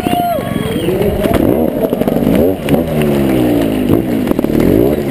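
Trials motorcycle engine heard up close from the bike, revved in about four quick throttle blips, its pitch rising and falling each time as the rider manoeuvres at low speed.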